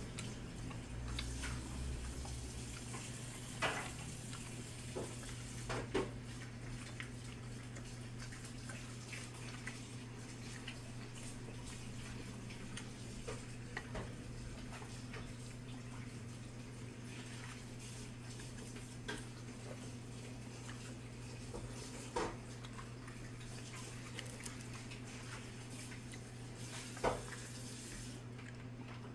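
Chopsticks clicking now and then against ceramic plates, a handful of short sharp clinks spread out, over a steady low hum.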